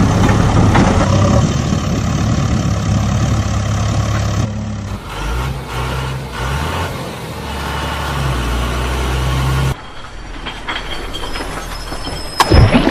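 Heavy truck engine sound, a steady low running hum that changes abruptly twice, about a third of the way in and about three-quarters of the way in. A loud sharp burst comes near the end.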